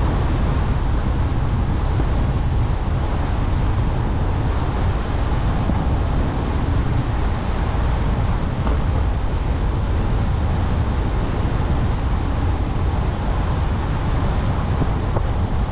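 Car driving along a road: a steady low rumble of driving noise that stays even throughout, with no sharp events.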